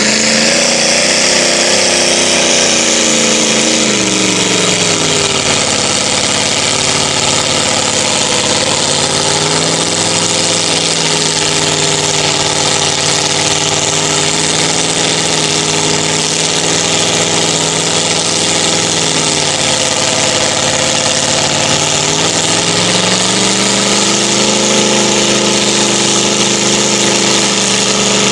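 A mud-bogging pickup truck's engine running hard as the truck ploughs through a deep mud pit. Its pitch climbs at the start, falls back, holds steady, then dips and climbs again to stay high near the end as the throttle is worked, over a steady hiss.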